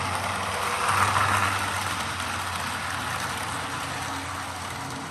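Model train running on the layout: a steady electric-motor hum and rolling wheel noise on the track, swelling briefly about a second in.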